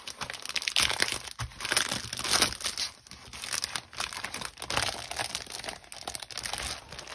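Clear plastic cellophane sleeve crinkling in the hands as a cardstock sticker sheet is moved inside it and slid out, in irregular crackles that are loudest between about one and two and a half seconds in.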